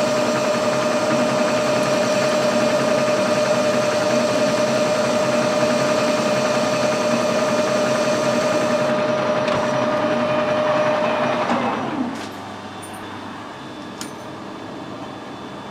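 Metal lathe running with a steady whine while turning a stepped aluminium workpiece, taking a half-millimetre cut. About twelve seconds in the lathe is switched off and its whine drops in pitch as it spins down. A single light click follows, as vernier calipers are put on the part.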